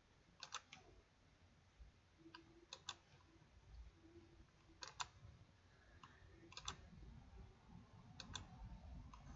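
Faint clicks of a computer mouse, mostly in quick pairs, about five or six times spread through an otherwise near-silent stretch, as a wire is being connected on screen.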